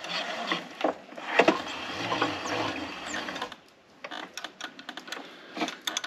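Recoil starter cord of a Honda EU3000i generator pulled slowly, turning the engine over by hand without starting it, so the valves can be watched for a sticking intake valve. A rasping mechanical sound with clicks lasts about three and a half seconds, with one sharp click about a second and a half in, then a few scattered ticks.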